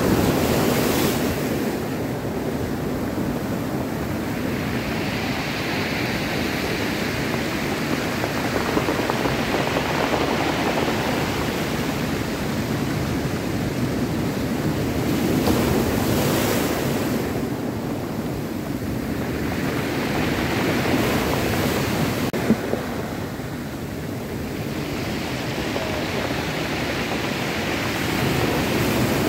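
Ocean surf breaking and washing against a rocky shore, swelling and easing in repeated surges every few seconds.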